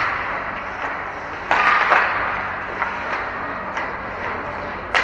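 Sounds of ice hockey play echoing in an arena: a steady rink hiss, a sharp knock about a second and a half in followed by a short burst of scraping noise, a few light clicks, and another sharp crack near the end, typical of sticks, puck and skates on the ice and boards.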